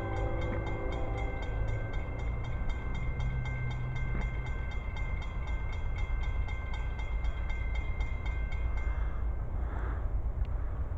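Approaching train: a steady low rumble from its locomotive, with a fast, even ticking over it that stops about nine seconds in.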